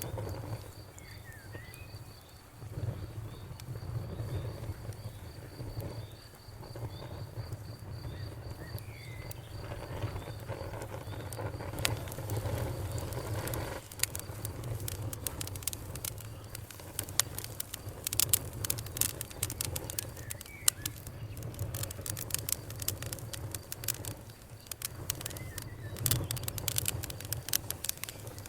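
Campfire crackling in a forest, a low steady burning rumble under sharp pops and snaps that grow denser from about halfway. Through the first part a high, steady pulsing insect trill runs and then stops, and a few brief bird chirps come through.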